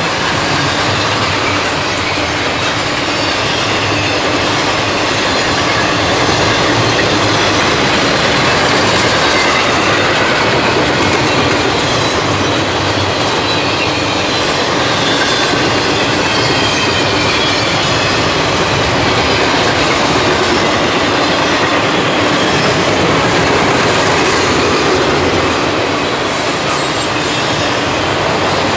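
Double-stack intermodal freight train's well cars rolling past at speed close by: a loud, steady rumble and clatter of steel wheels on the rails.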